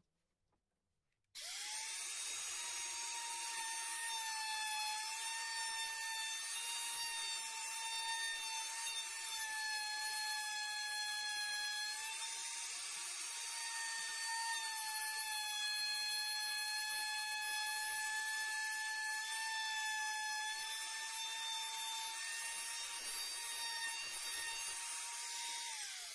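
Black & Decker router switched on about a second in, running with a steady high whine as it cuts a groove into a piece of wood, then switched off near the end.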